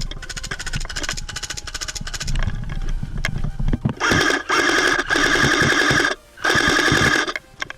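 Airsoft electric gun firing full-auto bursts, a rapid buzzing rattle of shots. A longer burst comes about four seconds in and a shorter one soon after.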